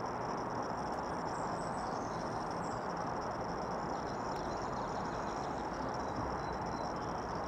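Insects trill in a steady high-pitched drone over a constant broad hiss of background noise. A few faint high chirps come in the first few seconds.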